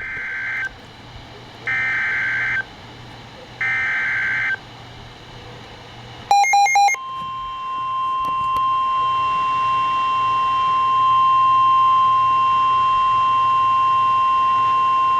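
Emergency Alert System SAME header: three short bursts of warbling two-tone data, then a quick run of sharp beeps. Then the 1050 Hz NOAA Weather Radio warning alarm tone sounds as one long steady tone for about eight seconds, marking the start of a severe thunderstorm warning broadcast.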